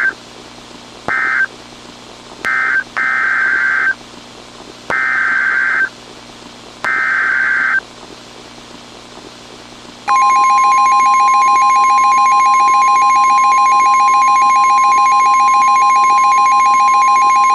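Emergency Alert System (SAME) data bursts: three short screeching squawks of end-of-message code, then the three one-second header bursts of a new alert, a second apart. About ten seconds in, a loud, steady NOAA Weather Radio alert tone near 1,000 Hz begins and holds, announcing a warning.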